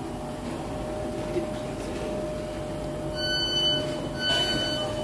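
Standing Greater Anglia electric train humming steadily. About three seconds in, its door warning starts beeping, a high half-second beep once a second, twice: the doors are being released to open.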